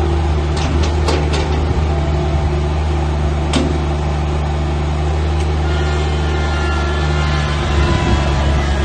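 Diesel engine of a New Holland TZ21D compact tractor running steadily as it drives, with a few sharp knocks about a second in and another at about three and a half seconds. A faint high whine joins in during the second half.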